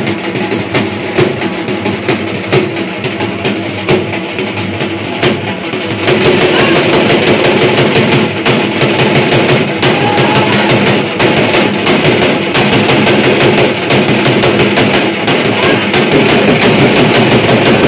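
Devotional drumming with fast, even strokes, which grows louder and denser about six seconds in.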